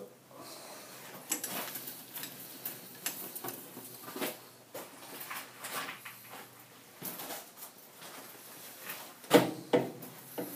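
Irregular clinks, knocks and rustling of tools and metal being handled at a stopped metal lathe, with two sharper knocks close together about nine seconds in.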